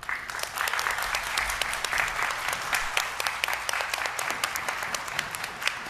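A roomful of people applauding, starting suddenly, with single claps standing out more toward the end.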